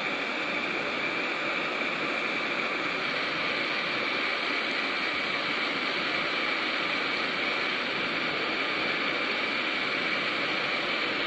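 Hot air rework gun blowing steadily on a motherboard MOSFET to melt its solder for removal: a steady rushing hiss of air with a thin high whine from the blower.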